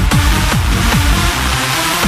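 Electronic dance music with a steady, fast beat of low, falling bass thuds; the beat and bass drop out for about the last half second.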